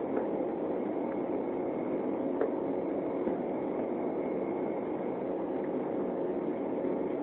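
Steady cabin noise inside an Embraer 195 airliner in flight: the rush of its two turbofan engines and the airflow past the fuselage, with a faint high whine held throughout and a few light ticks.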